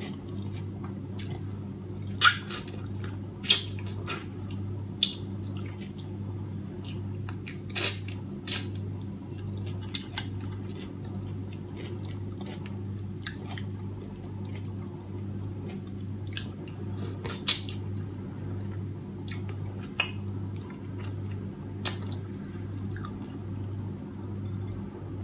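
Close-up eating sounds: wet chewing and lip smacks as steamed fish is picked apart by hand and eaten, heard as scattered sharp clicks. A steady low hum runs underneath.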